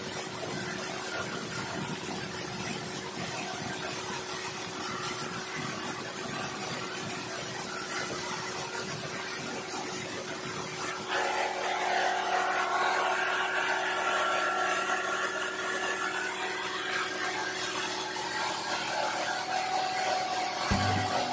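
Engine-driven rice thresher running steadily, a small petrol engine and the threshing drum making a continuous mechanical noise with a steady hum. About halfway through it gets louder and takes on several higher steady tones, as when the load or the engine speed changes.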